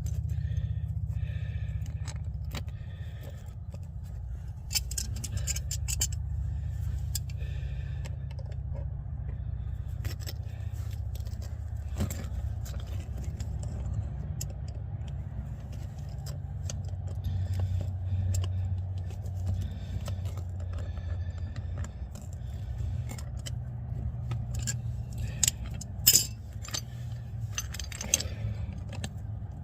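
Metal hand tools clinking, tapping and scraping on a 1959 Ford F100's drum brake parts while trying to work a stuck part loose. The clicks come irregularly, the sharpest one near the end, over a steady low rumble.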